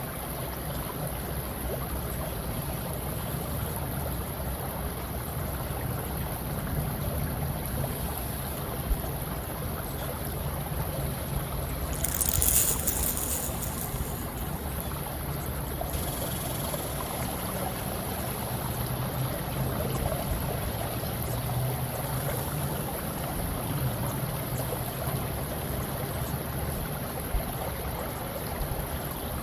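Ambient recording of running water, a steady wash of water noise with a low rumble underneath. About twelve seconds in it swells briefly louder and brighter, then settles back.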